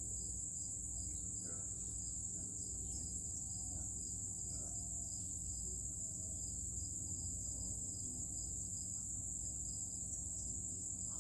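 Insects, crickets, calling in a steady high-pitched chorus, with a regular pulsing chirp under it and a low steady rumble beneath.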